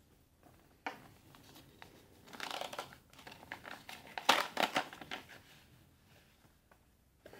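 A paper envelope being torn open and handled, crinkling and rustling in short bursts, loudest about two and a half and four and a half seconds in, then quieter rustles as cards slide out of it.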